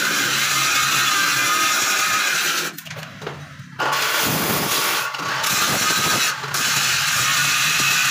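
Arc welding on a steel grill gate: a steady crackling hiss that breaks off abruptly for about a second near three seconds in, and briefly twice more after that.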